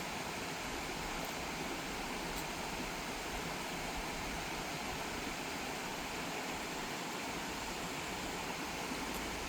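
Small waterfall rushing steadily, a constant wash of falling water.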